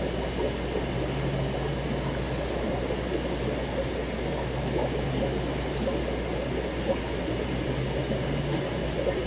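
Aquarium water bubbling and trickling steadily from the tank's aeration, with a low hum underneath.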